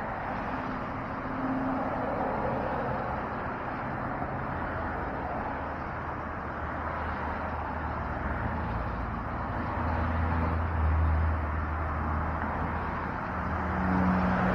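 Road traffic: a steady outdoor rush with the low hum of a motor vehicle swelling and fading about two-thirds of the way through.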